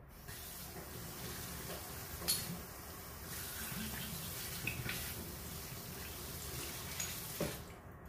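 Kitchen tap running into a stainless steel sink as a glass bottle is rinsed under it, with a few sharp clinks of glass.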